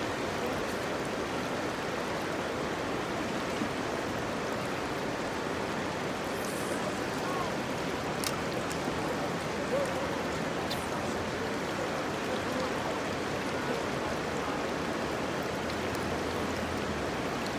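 Fast, shallow river current rushing and gurgling over a rocky bed, heard close to the water's surface; a steady, unbroken rush.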